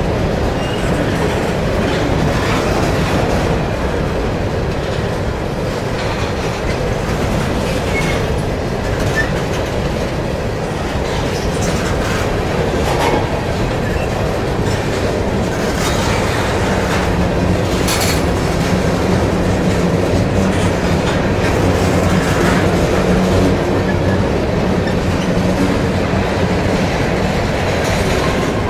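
Freight train of covered grain hopper cars rolling past close by: a steady, loud rumble of steel wheels on rail, with a few sharper knocks along the way.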